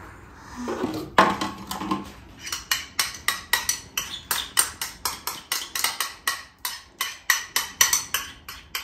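A spoon scraping and tapping against a ceramic bowl, knocking thick yogurt out into another bowl, in a quick regular run of taps about four a second that starts a couple of seconds in.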